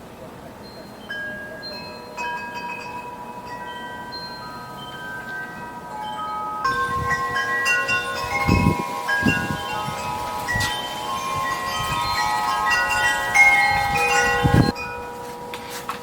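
Background music of chime-like bell tones, sparse at first and fuller after about seven seconds, with a few deep low notes underneath.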